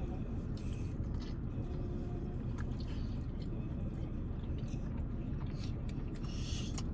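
Eating sounds inside a car: chewing, with small clicks and rustles from a plastic fork and foil takeout container, over a steady low hum.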